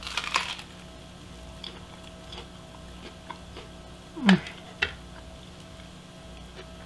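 A bite into a Reuben sandwich on butter-toasted rye: a brief crunch of the bread at the start, then faint chewing. About four seconds in there is a short hum from the eater that falls in pitch, and then a single light click.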